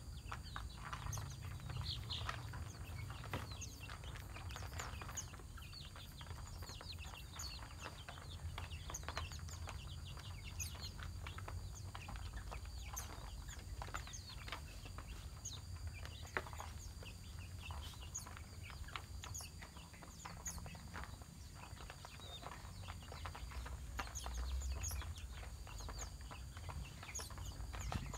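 Bangkok gamefowl chickens clucking, with caged songbirds making many short, quick chirps throughout.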